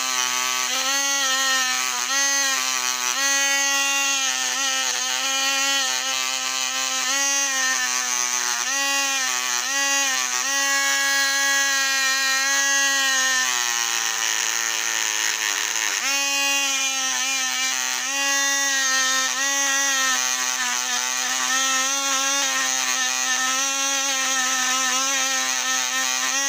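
Small handheld rotary tool (miniature drill) spinning a wire brush wheel against the wheels of a model locomotive to scrub off grime. Its motor makes a steady high whine that dips in pitch again and again as the wire wheel is pressed on. About halfway through it sags lower for a couple of seconds, then picks back up.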